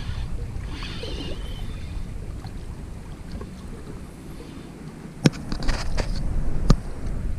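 Wind rumbling on the camera microphone, with a few sharp clicks about five to seven seconds in.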